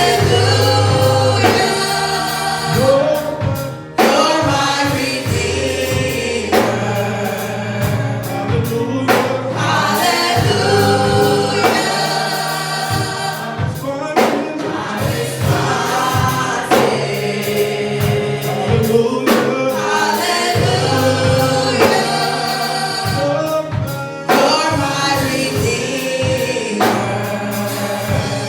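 Gospel music with a choir singing over a band, with bass and a steady drum beat.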